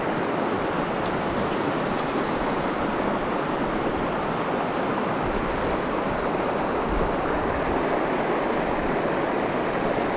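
River current rushing over boulders and around the angler's legs close to the microphone, a steady rushing noise.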